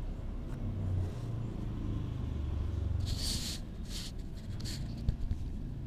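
A low steady rumble, with a few short rustling hisses about three to five seconds in as a hand moves against a cardboard box.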